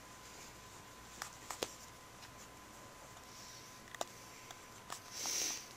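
Faint handling noise: a few scattered sharp clicks and a short hiss near the end, over a faint steady electrical tone.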